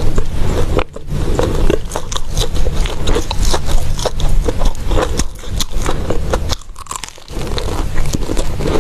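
Close-up eating sounds of biting and chewing golden crumb-coated balls: a dense run of sharp crackling bites, with a short lull about six and a half seconds in.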